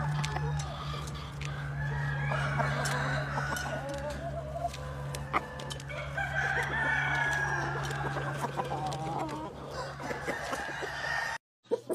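Chickens clucking, with roosters crowing, several calls overlapping, over a steady low hum. The sound cuts off abruptly near the end.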